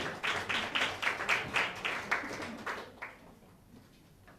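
Audience applauding, a run of claps at about four a second that dies away about three seconds in.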